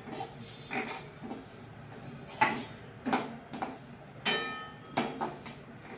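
Steel spoon scraping and clinking against a steel kadai, about eight strokes in six seconds, as sesame seeds are stirred while dry-roasting. Some strokes leave a short metallic ring.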